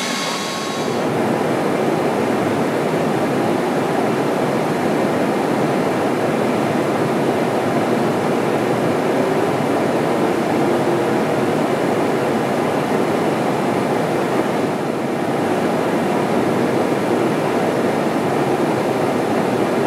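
Steady rushing roar of airflow and engines inside a KC-10A Extender tanker in flight, starting about a second in.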